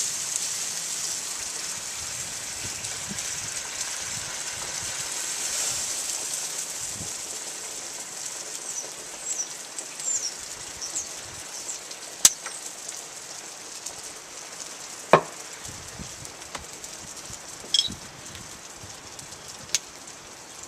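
Beer sizzling as it is poured into hot oil in a cast iron skillet of sausages, a high hiss that slowly dies down. A few sharp pops stand out in the second half.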